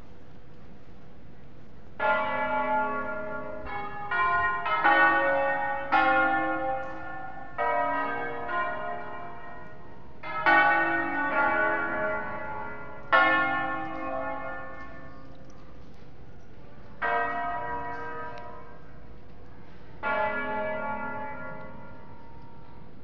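Cremona Cathedral's seven-bell ring, tuned in A-flat major, rung as a concerto: bell strokes follow one another in an uneven sequence, each ringing on and overlapping the next. The strokes come thick and fast for the first half, then thin out to single strokes with pauses of a few seconds between them.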